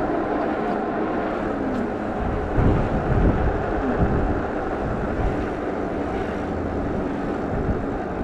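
Wind rushing over the microphone and road noise while riding a Super73 electric bike, with louder wind buffeting about three seconds in.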